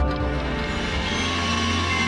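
News-bulletin theme music with a hit at the start, swelling into a sustained chord.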